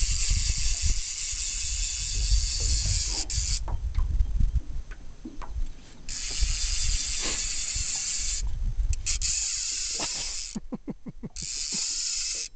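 Fly reel's drag buzzing as a hooked trout runs and pulls line off the spool. The buzz comes in four stretches with short pauses between them, and a quick run of clicks a little before the end, where the line is wound back in between runs. Wind rumbles on the microphone throughout.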